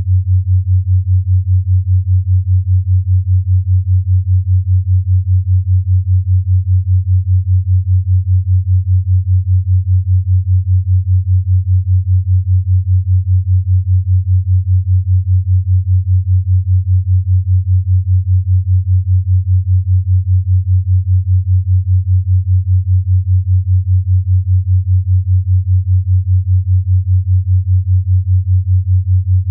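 Steady low sine tone of a 5 Hz binaural-beat track, pulsing evenly and rapidly in loudness without change.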